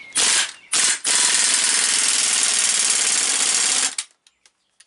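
Half-inch-drive air impact wrench, fitted with an adapter to a 1-5/8 inch socket, tightening a large nut: two short bursts, then one long run of hammering for about three seconds that cuts off near the end. The nut had been loose and tightens up well.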